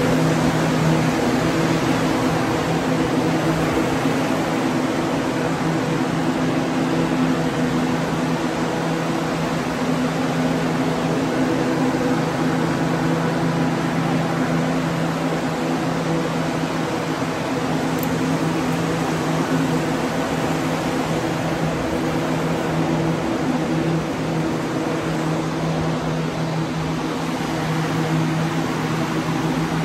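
Industrial drying fans running steadily: a constant rush of air with a steady hum, drying the floor and walls after a flood.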